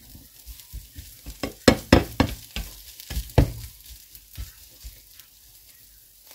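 Sliced onions frying in a nonstick pan, stirred and turned with a plastic slotted spatula: a quick run of scrapes and taps against the pan, busiest in the middle and thinning out near the end, over a faint sizzle.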